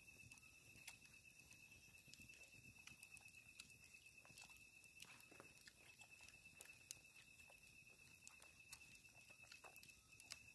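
Near silence: crickets trilling faintly and steadily at night, with scattered soft clicks and rustles of hands picking rice off banana leaves.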